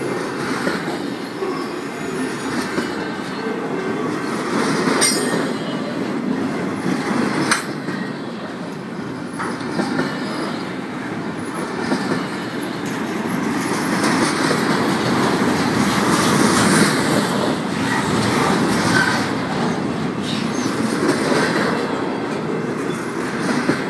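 BNSF double-stack intermodal freight cars rolling past close by: a steady rumble of steel wheels on the rails, broken by a few sharp clacks.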